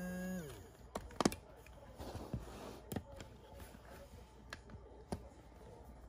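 Small plastic clicks and taps from fingers handling the battery-compartment cover of a toy sink's faucet pump unit, with a sharp click about a second in the loudest and sparser clicks after.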